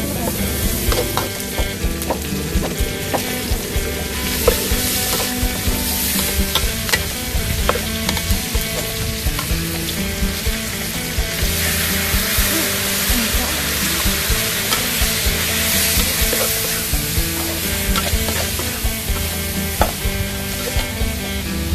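Lemongrass, kaffir lime leaves and chicken pieces sizzling in hot oil in a steel wok, stir-fried with a metal spatula that scrapes and clicks against the pan many times. The sizzle grows louder through the middle.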